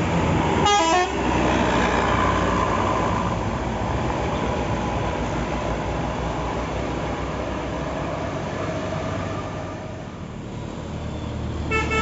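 A bus's telolet horn, a multi-tone musical horn, plays a brief stepped burst about a second in. The passing coach's engine and tyres then run steadily and fade. Just before the end another telolet horn melody starts.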